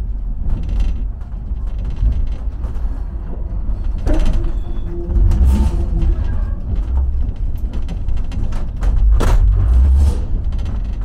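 Sleeping car of a train heard from inside its compartment, its wheels running over the tracks with a steady low rumble and irregular clunks as they cross rail joints and points. A short squeal about four seconds in, and a sharp knock a little after nine seconds.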